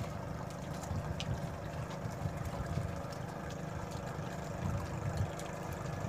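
Wind buffeting the microphone in an uneven low rumble, over the steady hum of a running engine on choppy open water.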